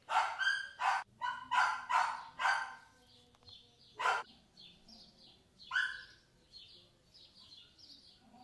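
A dog barking off-camera: a quick run of about five barks in the first three seconds, then two single barks spaced out. Faint bird chirps sound between the later barks.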